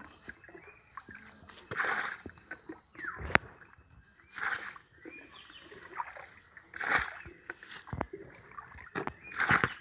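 Muddy paddy-field water being scooped up with a plastic jug and splashed out, in bursts about every two and a half seconds, with a couple of sharp knocks between them.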